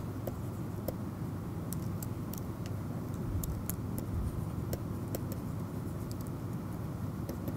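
Steady low background rumble with scattered faint clicks of a stylus tapping on a pen tablet while handwriting.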